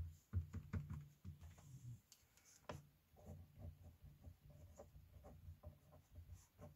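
Pen writing on a paper worksheet: faint, irregular short strokes and small taps as numbers are written out.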